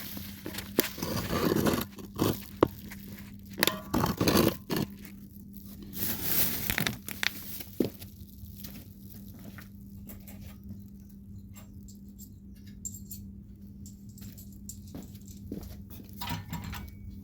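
Knocks, clinks and scrapes of a front wheel and axle bolt being fitted into a minibike's front fork by hand, busiest in the first several seconds and then sparser. A steady low hum runs underneath.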